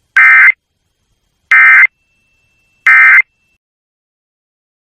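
Emergency Alert System end-of-message signal: three short, loud bursts of buzzing digital SAME data tones, about 1.3 seconds apart, marking the end of the alert broadcast.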